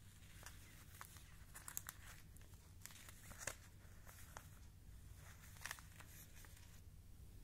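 Clear Print File plastic negative sleeves crinkling as they are handled, faint, with a scatter of sharper crackles every second or so.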